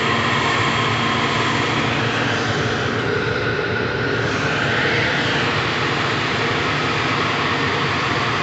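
Gasoline pump dispensing fuel through the nozzle into a car's tank: a steady mechanical hum and rushing noise, with a car wash running close by.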